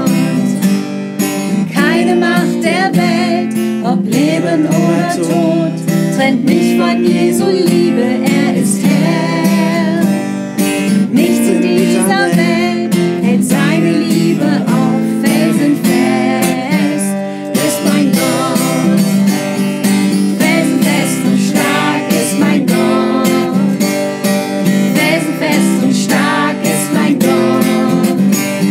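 Acoustic guitar strummed steadily as accompaniment to a worship song, with voices singing along.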